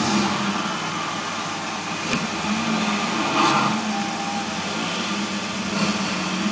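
Desktop PC cooling fans running with a steady whir and a low, wavering hum.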